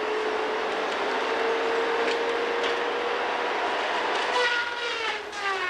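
Timberjack 618 feller buncher's engine and hydraulic saw head running with a steady high whine that rises slowly. About four and a half seconds in, the whine drops in pitch in two falling glides.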